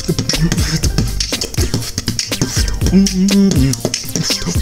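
Vocal beatboxing: a fast run of mouth-made kick drums, snares and hi-hat clicks, with a short held low note about three seconds in.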